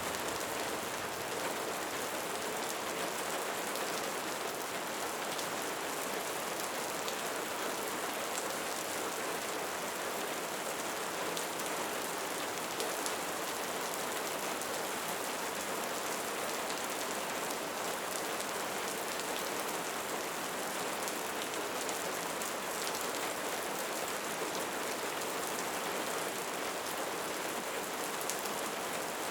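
Light rain falling steadily on a surface, an even hiss with fine scattered drop patter.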